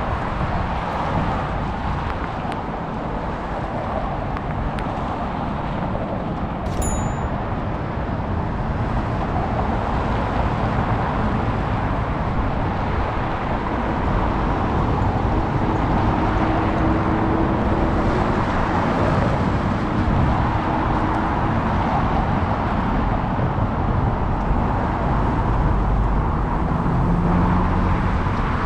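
Steady city road traffic, cars passing on a nearby street, growing somewhat louder about halfway through. A brief high chirp sounds about seven seconds in.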